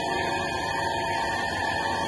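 Kent surface grinder running steadily, a constant machine hum with several steady tones.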